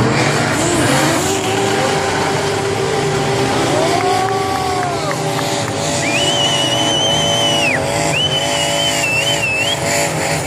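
Drift car engines running hard at high revs, one note rising and falling about four seconds in, over constant tyre noise. From about six seconds in, a high-pitched tyre squeal in long stretches as a rear-wheel-drive BMW E36 spins donuts.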